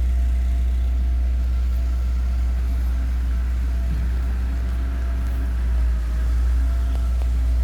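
A motor vehicle engine running steadily: a low, even rumble with faint steady tones above it.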